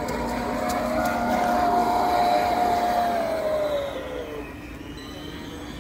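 A 1/10-scale RC pontoon boat runs at speed with the high whine of its electric-driven scale outboard motor, over the hiss of its spray. About four seconds in, the whine falls in pitch and fades as the boat runs away.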